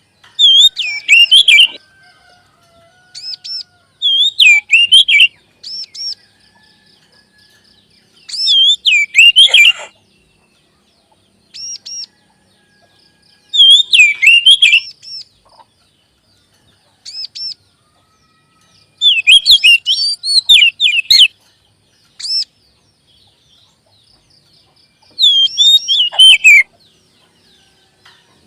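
Oriental magpie-robin (kacer) song: six loud bursts of fast, sweeping chattering notes, about five seconds apart, with single short whistles in between.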